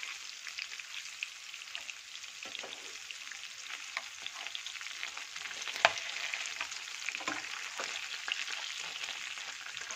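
Rava-coated Indian mackerel shallow-frying in oil over a medium flame: a steady sizzle full of small crackles and pops while a slotted metal spatula turns the fish. One sharp click about six seconds in.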